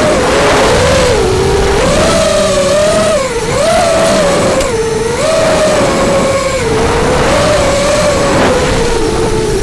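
FPV racing quadcopter's brushless motors and Dalprop propellers whining, the pitch swinging up and down several times with the throttle, over a steady rush of air noise, as recorded by the quad's onboard camera.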